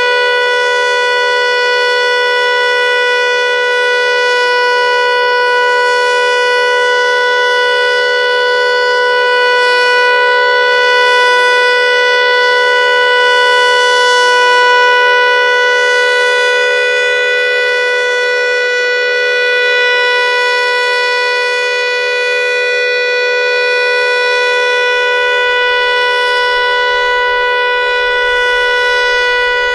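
Federal Signal Eclipse 8 electronic outdoor warning siren sounding its steady Alert tone: one unwavering, loud chord of several pitches, with only slight swells in loudness. An odd buzzing comes from the siren throughout the test, of a cause the uploader is unsure of.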